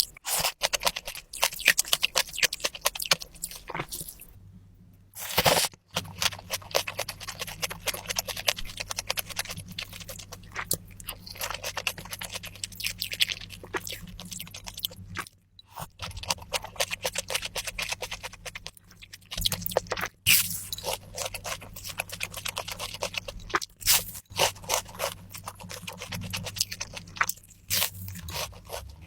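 Close-miked eating: crunching and chewing of food with scraping sounds, broken by a few brief silent gaps, over a steady low hum.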